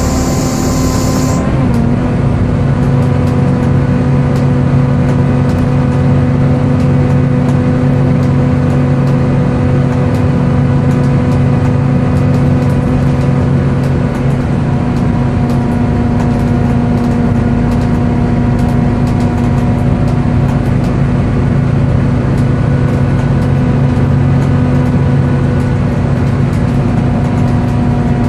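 Volvo B7TL bus's engine and cooling fan running steadily, a loud, screechy hoover-like whine that holds one pitch. A hiss cuts off about a second and a half in, and the whine's pitch dips slightly at the same moment.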